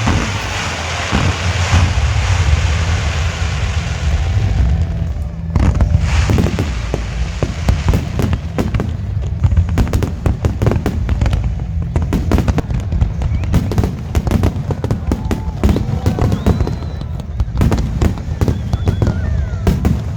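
Fireworks going off in rapid, overlapping succession: many sharp bangs and crackles over a continuous low rumble, with a dense crackling hiss in the first few seconds.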